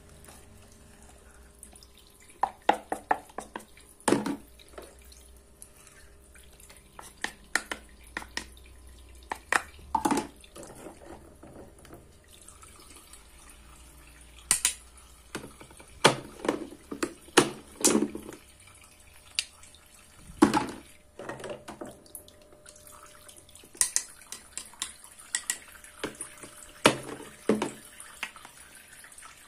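A toy kitchen sink's faucet trickling water, overlaid with many irregular clicks and knocks of wet plastic toy fruit and vegetable pieces being handled and knocked together, some in quick clusters.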